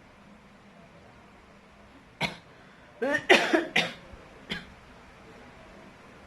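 A person coughing: one cough about two seconds in, then a rapid fit of several coughs, and a last single cough.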